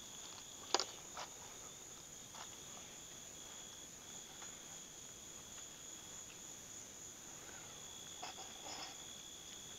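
Crickets singing in a steady, high, continuous trill, with one sharp click about a second in and a few faint ticks.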